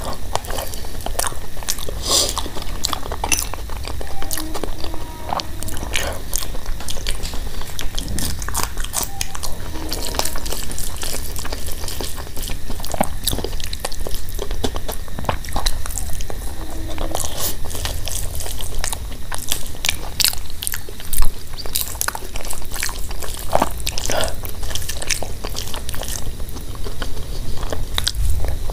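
A bare hand squishing and mixing rice with dal and mashed potato bharta, making wet sticky squelches and many small clicks, with close-up mouth chewing and a bite. One sharper click stands out about two-thirds of the way through.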